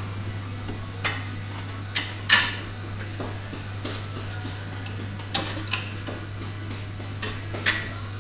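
Scattered metal clinks and knocks, about six in all, from cylinder-head parts and bolts being handled while the head is fitted onto the VAZ-21083 engine block, over a steady low hum.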